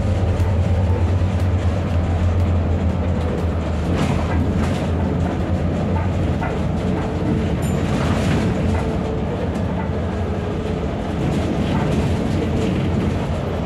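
Inside a moving city bus: the engine's low drone and road noise, with the cabin rattling now and then. The drone eases after about five seconds.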